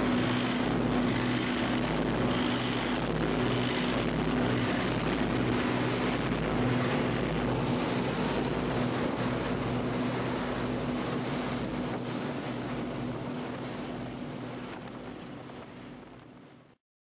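A passenger boat's engine drones steadily under way, with the rush of its wake and wind. It slowly fades out and then cuts off shortly before the end.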